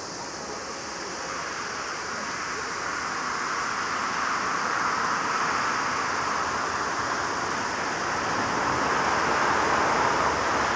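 Airbus A330-300 airliner's twin jet engines at take-off power during the take-off roll, lift-off and initial climb: a steady rushing roar that grows steadily louder as the aircraft climbs toward the listener.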